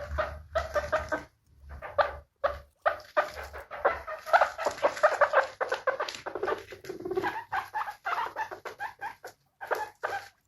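Guinea pig squeaking in quick runs of short, pitched calls, broken by a few brief pauses.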